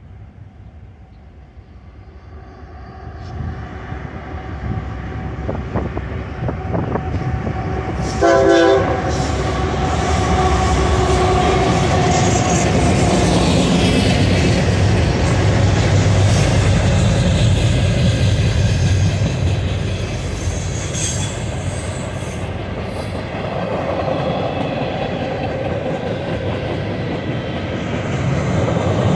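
A diesel-hauled freight train approaches and passes close by. A rising rumble is broken by one short blast of the lead GE CW44AC's five-chime K5L air horn about eight seconds in, the loudest sound here. Then comes the heavy engine rumble of the EMD SD70MAC and SD40-2 locomotives going past, followed by freight cars rolling by with wheel clatter and some wheel squeal.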